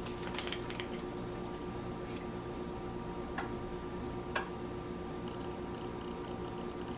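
Plastic squeeze bottle of sauce handled and squeezed onto baked chicken wings in a sheet pan: a few small clicks and taps, with a faint squish, over a steady hum.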